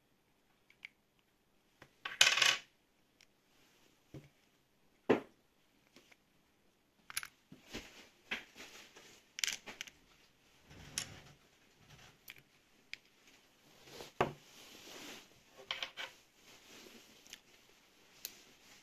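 Scattered small clicks, scrapes and light metallic clinks as fingers twist off a watch's battery cover and lift out its coin-cell battery. The loudest is a short rattle about two seconds in.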